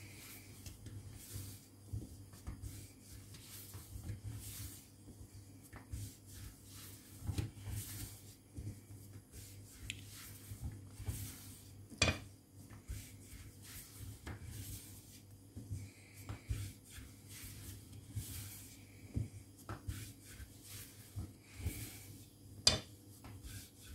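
Long thin wooden rolling pin (oklava) rolling lavash dough on a floured board: a string of soft rolling rustles and light wooden knocks, with a sharper knock about halfway through and another near the end, over a low steady hum.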